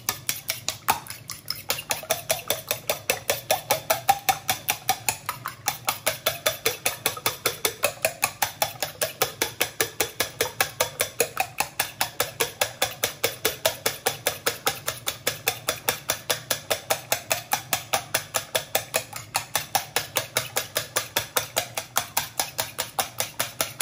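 Fork whisking beaten eggs in a stainless steel bowl, the tines clicking against the metal in a quick, even rhythm of about five strokes a second.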